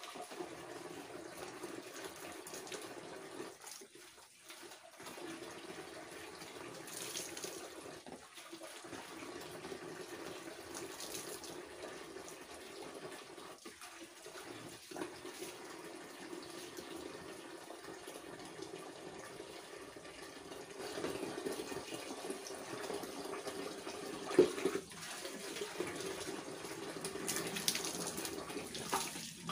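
Water running and splashing steadily with a few short breaks, as shampoo is rinsed out of long hair. One brief sharp knock comes near the end.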